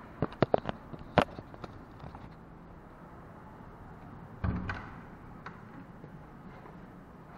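A cluster of sharp clicks and knocks, then a single dull thump about four and a half seconds in as a wooden apartment door is unlatched and pushed open.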